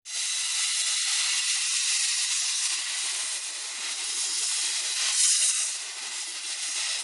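1918 Kerr Stewart narrow-gauge steam locomotive hissing steadily as steam blows from its open cylinder drain cocks while it moves slowly off. The hiss swells louder about five seconds in.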